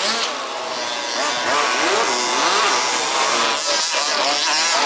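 Several 1/5th-scale RC buggies' small two-stroke petrol engines revving up and down together, their pitches rising and falling and overlapping as the buggies race.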